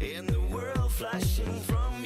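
Dance-pop music with a steady four-on-the-floor kick drum, about two beats a second, and a sung or synth melody line.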